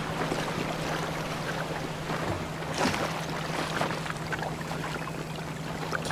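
Boat out at sea: a steady low engine drone under the continuous wash and splash of water, with a stronger splash about three seconds in.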